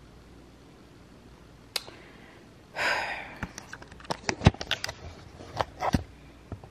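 A short sharp breath through the nose, then a run of clicks and knocks from the handheld camera being handled and turned around.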